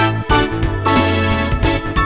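Background music with a keyboard melody over a steady bass and regular beat.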